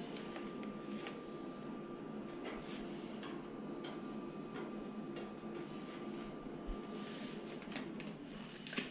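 Steady low hum with a thin, steady whine that stops shortly before the end, under scattered light clicks and crinkles of window tint film being handled at a Graphtec cutting plotter's blade carriage.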